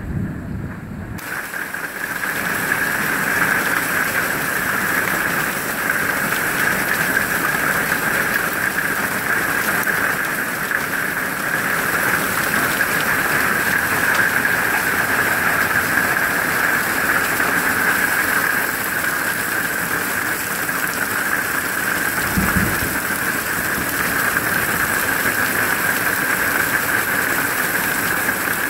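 Heavy rain mixed with hail pelting the ground and surfaces, a dense steady hiss of impacts. At the very start a low wind rumble on the microphone gives way to the hiss, and a brief low thump comes about 22 seconds in.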